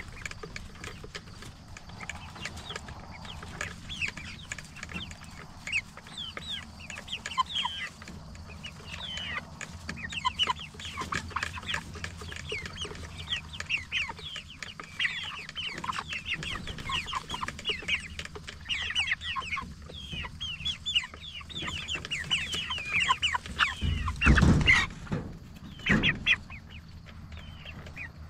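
A flock of Cornish Cross broiler chickens calling continuously: many short, high, falling peeps mixed with clucks. A loud brief burst of noise about 24 seconds in, and a smaller one about two seconds later.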